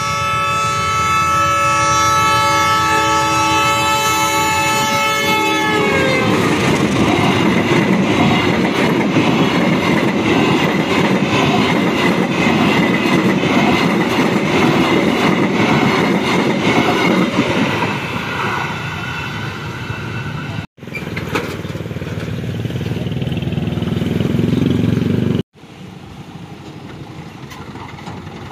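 A train horn sounds a steady multi-tone blast for about six seconds as an Indonesian KAI passenger train approaches the level crossing. The train then passes close by with a loud, steady rumble and clatter of its wheels on the rails.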